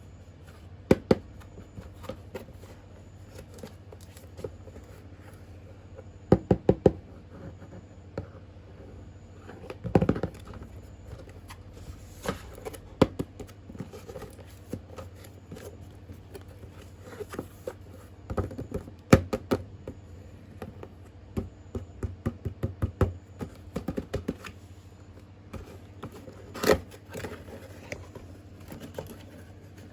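Hands handling a boxed remote-control toy truck and its packaging: scattered sharp clicks and knocks, some in quick clusters, with rubbing, over a steady low hum.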